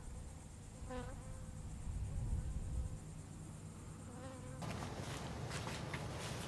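A buzzing drone with a wavering pitch, swelling about a second in and again near four seconds, over a low outdoor rumble. About four and a half seconds in the background changes to rustling with small clicks.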